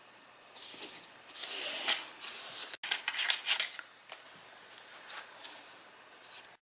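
Paper and card rustling and rubbing under a hand on a scrapbook page, in several short scraping bursts that are loudest over the first few seconds and then die down.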